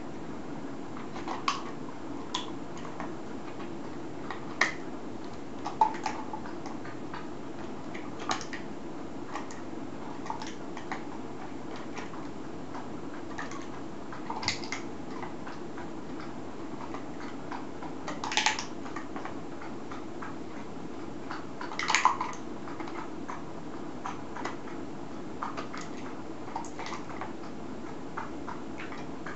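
Ping-pong ball clicking and tapping on a tatami floor as a Shetland sheepdog noses and mouths it: scattered sharp ticks every second or few, a couple of them louder, over a steady low room hum.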